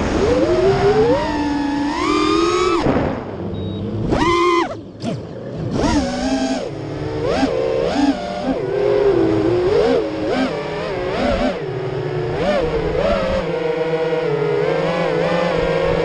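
Brushless motors of an FPV racing quadcopter (Armattan Oomph Titan 2206-2450kv with Dal Cyclone T5046 props) whining, the pitch rising and falling sharply with each throttle change, then holding a steadier whine in the last few seconds.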